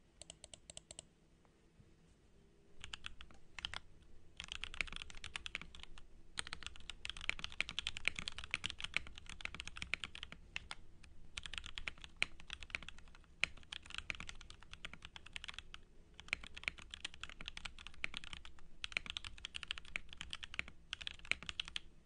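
Mechanical keyboard with lubed Akko CS Jelly Black linear switches, plate foam and case foam being typed on fast: a dense, continuous run of key clacks broken by short pauses every few seconds. A few scattered clicks come first, and steady typing starts about three seconds in.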